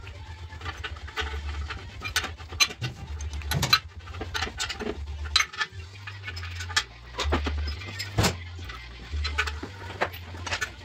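Metal gearbox parts, such as gears, synchronisers and bearings, clinking and knocking irregularly as they are handled and fitted together, over a low hum that shifts in steps.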